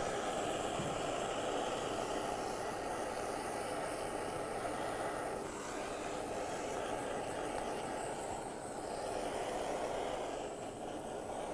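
Handheld kitchen gas blowtorch burning with a steady hiss of flame, caramelising the sugar on top of a crème brûlée. It eases off slightly a little past halfway.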